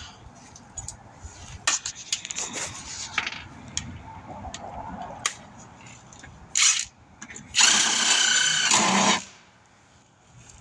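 Handheld power tool running down bolts: a short run about six and a half seconds in, then a longer run of about a second and a half with a steady whine. Scattered clinks of metal tools and sockets come before.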